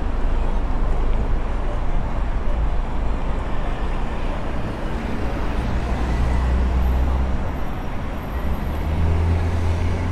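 Road traffic running along a busy city street: a steady wash of traffic noise with the low hum of car engines, swelling as vehicles pass close about halfway through and again near the end.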